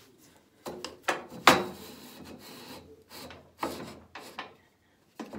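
Rip fence of a Makita 2708 table saw slid across the saw's table and over a new wooden zero clearance insert, in several short scraping, knocking strokes, the loudest about one and a half seconds in. It is a test that the insert sits flush, so the fence passes over it without catching.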